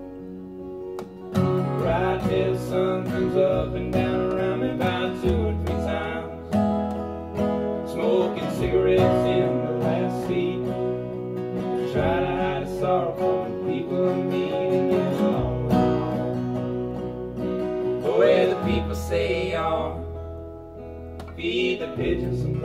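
Acoustic guitar strummed and picked in a country-style instrumental break, over a recorded band performance playing from a TV with held upright-bass notes underneath.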